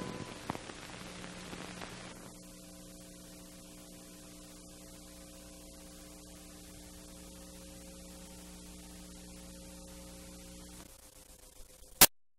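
Steady electrical mains hum with faint hiss on the film's transferred soundtrack, after the last of the music dies away in the first two seconds. The hum drops away shortly before the end, and a single sharp click follows as the recording cuts to dead silence.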